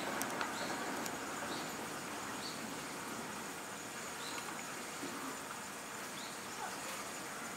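Steady outdoor background noise with faint, short, high chirps repeating about once a second.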